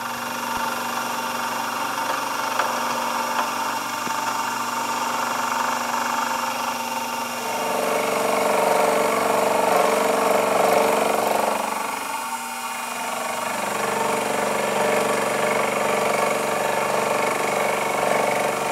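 Sherline vertical mill running, its end mill cutting a V-notch into a metal strap clamp: a steady motor whine of several tones under the cutting noise. The cutting grows louder about seven seconds in, eases briefly a few seconds later, then picks up again.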